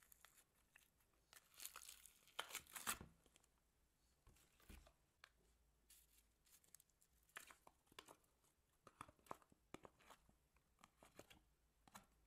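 Slime being squeezed and pressed by hand in a plastic tub, giving faint, scattered crackles and pops, with a louder run of crackling about two to three seconds in.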